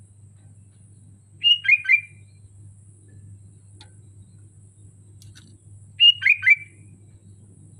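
Sooty-headed bulbul (kutilang) singing two short, loud phrases about four and a half seconds apart, each of three quick falling notes.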